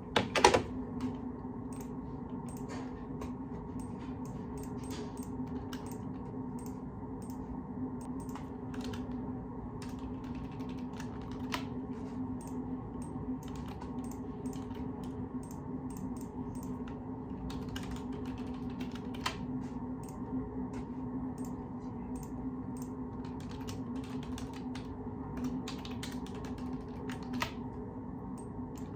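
Computer keyboard being typed on in scattered runs of keystrokes, over a steady low hum. One louder knock comes about half a second in.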